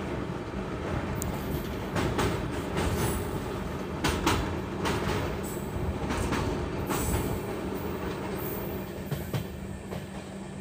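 Indian Railways 3AC economy passenger coach running at speed: a steady rumble with irregular clacks as the wheels pass over the rail joints.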